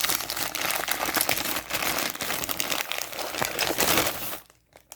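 Packaging being crinkled and rustled by hand during unboxing: a dense, crackly rustle that stops about four seconds in.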